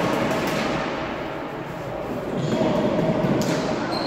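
Floorball game in a large echoing sports hall: players calling out, with scattered sharp clacks of sticks striking the plastic ball and the floor.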